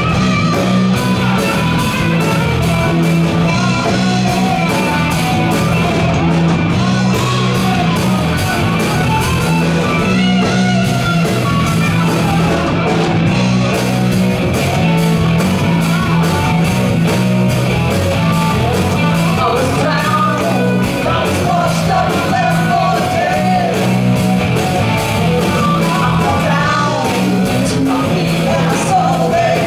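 Live rock band playing amplified electric guitars, bass and drums with a steady beat, a vocalist singing over it.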